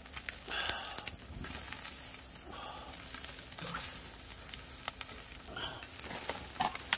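Hanwoo beef slices sizzling on a wire mesh grill over hot charcoal, a steady hiss with scattered sharp crackles.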